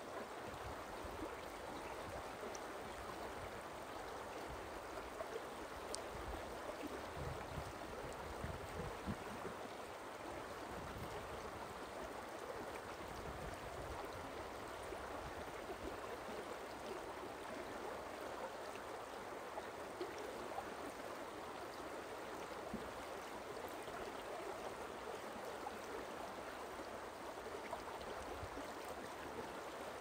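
Forest stream running: a steady, even rush of flowing water.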